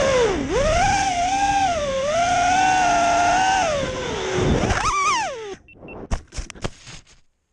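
FPV racing quadcopter's brushless motors whining, the pitch dipping and rising with the throttle. About five and a half seconds in the whine climbs sharply and cuts off as the drone crashes into the snow, followed by a few knocks as it tumbles, then silence.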